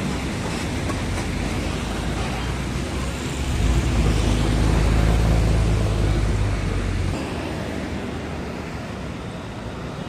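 Diesel engine of a Mitsubishi truck tractor hauling a container trailer past, a deep steady hum that swells about three and a half seconds in and drops away about seven seconds in, over general road traffic noise.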